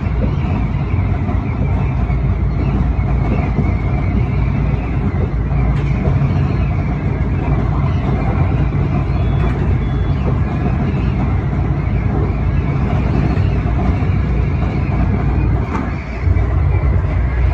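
Tobu 9000 series electric commuter train running along the line, heard from inside the front car: a steady low rumble of motors and wheels on the rails.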